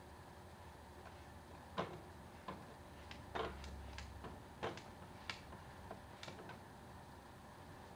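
Plastic cat flap clicking and clacking in its frame: about ten sharp, irregular clicks as a cat pushes at it with its head, trying to get through.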